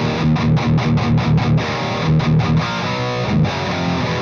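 Electric guitar tuned down to E flat, played through a Splawn Quickrod 100 amp's overdrive channel in first gear, its lowest gain setting, into a 1x12 cabinet with Celestion Greenback speakers. It is a lightly distorted riff of quick, clipped chords with a few held notes.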